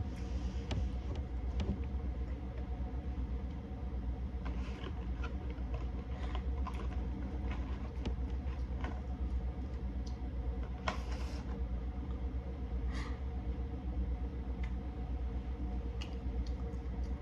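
Scattered small clicks and crackles of seafood-boil shells and food being handled and eaten, over a steady low hum.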